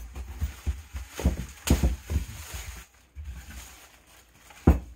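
Irregular knocks and handling noises from workshop parts being moved about, with a sharper knock near the end.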